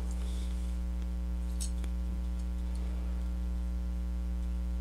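Steady electrical mains hum with a few faint clicks about a second and a half in.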